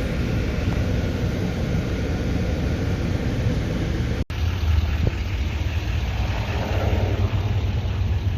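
Camaro SS V8 engine idling with a steady low rumble. The sound cuts out for an instant about four seconds in.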